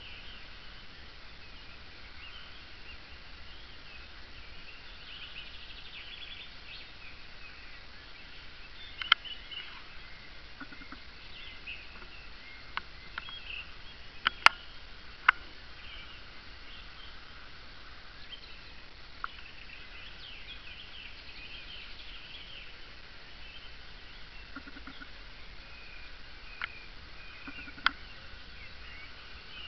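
Several birds singing and chirping against a faint steady hiss. A few sharp clicks break in, the loudest about halfway through, with others about a third of the way in and near the end.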